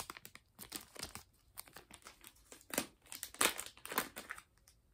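Small clear plastic bag holding a wax melt sample crinkling as it is handled: irregular crackles, loudest around three to four seconds in, fading out just before the end.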